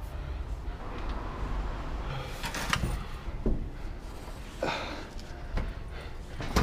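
Clothing and backpack rustling and scraping against scaffolding as a person squeezes through a tight gap: a few short brushing bursts with light knocks about two and a half, three and a half and nearly five seconds in, over a low steady rumble.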